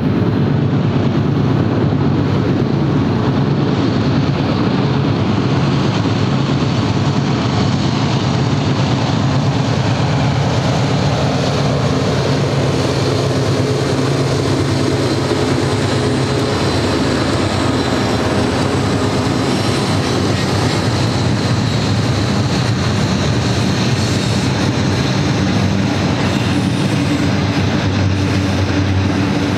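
BNSF GE C44-9W diesel locomotives with V16 engines pass under power, followed by double-stack container well cars rolling by on steel wheels. The deep engine drone fades after about ten seconds, leaving the steady rolling noise of the wheels on the rails.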